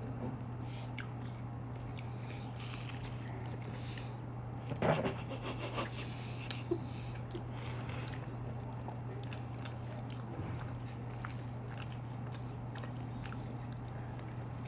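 A person chewing and biting into a light, flaky cream-puff pastry, with small wet mouth clicks and a louder flurry of crunching about five seconds in. A steady low hum runs underneath.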